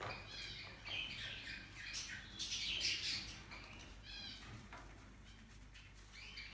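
Moluccan cockatoo giving a run of short, high chirping calls, loudest around three seconds in, then quieter near the end.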